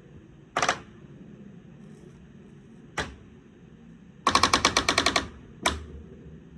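Barn door's dry metal hinges creaking as the door is swung: a short rasp about half a second in, a knock, then a run of fast rasping pulses lasting about a second, and another knock near the end. The hinges are dry enough to need oil.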